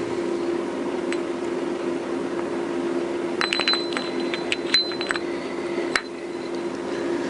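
Steel transmission gears on a Honda CBR1000F gearbox shaft clinking against each other and the crankcase as the shaft is lifted out and handled, a flurry of clinks with a brief metallic ring in the second half and a last knock about six seconds in. A steady low hum runs underneath.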